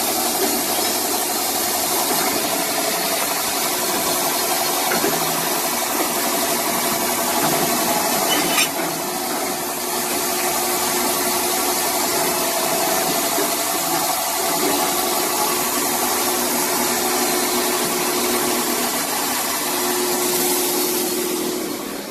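PM315 CNC saw blade polishing machine running: a steady motor hum with several held tones over a dense hiss of abrasive polishing on a steel saw blade. A sharp click comes a little over eight seconds in, after which it runs slightly quieter.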